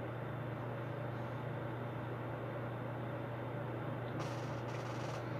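Steady room noise: a constant low hum under an even hiss, with a few faint soft noises near the end.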